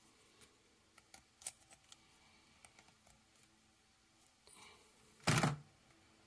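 Faint clicks and taps of small plastic action-figure kit parts being handled and pressed together, with one louder, brief click and rustle about five seconds in.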